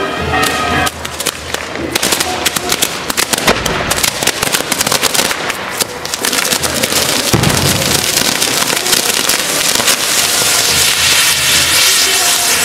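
Fireworks and firecrackers going off: a rapid, irregular string of sharp cracks, a deeper bang about seven seconds in, then dense continuous crackling.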